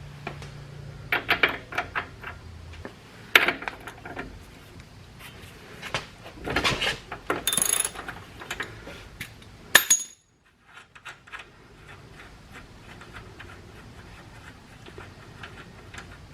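Metal hand tools and steering parts clinking and clanking in a series of irregular knocks, the sharpest about three seconds in, one ringing with a metallic tone about eight seconds in, then fainter ticks.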